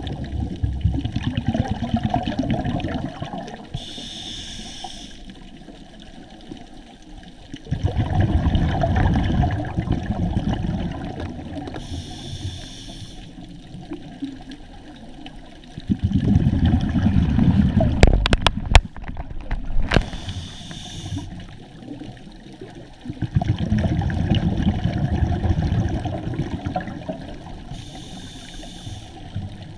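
Scuba diver breathing through a regulator underwater: a hiss on each inhale and a rumble of exhaust bubbles on each exhale, repeating about every eight seconds. A few sharp clicks come about two-thirds of the way through.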